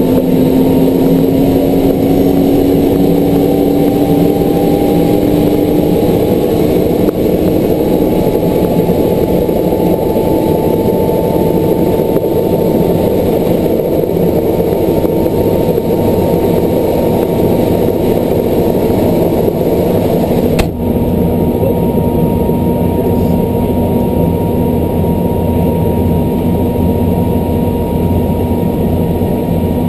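Helicopter engine and rotor running steadily, heard from inside the cabin. The pitch rises slightly over the first several seconds, then holds.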